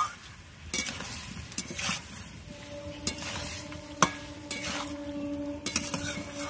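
Metal spatula (khunti) scraping and clinking against a metal kadai as chicken and potato curry is stirred, with the oil sizzling. This is the kosha stage, the meat fried down in oil and spices without water. The scrapes come at irregular intervals, about one a second.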